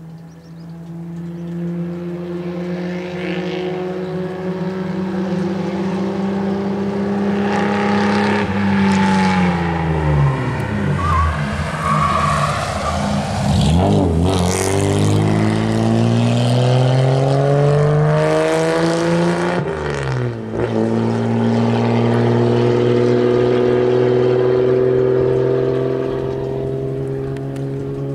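1950 Jaguar XK120's 3.4-litre twin-cam XK inline-six engine driven hard on a hill climb, growing louder as it approaches. Its note drops about nine seconds in as the car slows for a hairpin, then climbs as it accelerates out, with a brief dip in pitch around twenty seconds in before it pulls on.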